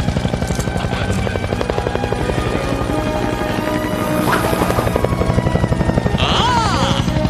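Helicopter hovering overhead, its rotor beating in a rapid, steady pulse, with film score music underneath.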